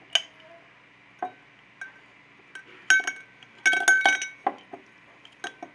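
A brush stirred in a glass tumbler of liquid, its handle knocking against the glass: about a dozen irregular clinks, each with a short ring, coming thickest and loudest about three to four seconds in.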